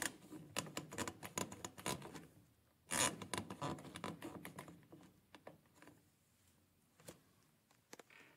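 Plastic clicking and scraping as a small overflow standpipe is pushed into its drain fitting inside a PVC pipe: quick taps for about two seconds, a louder scrape about three seconds in, then a few scattered ticks.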